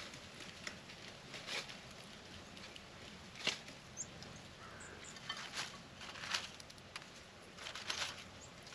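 Birds at a plate of peanuts: irregular light taps and clicks as they land and handle the nuts, with a couple of brief high chirps about four seconds in.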